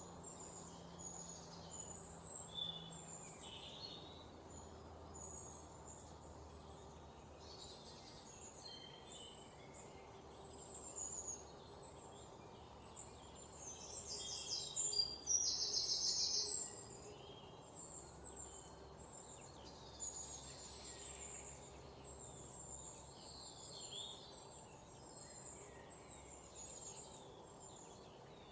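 Several songbirds chirping and trilling over a faint steady background hiss, with a louder rapid trill about halfway through.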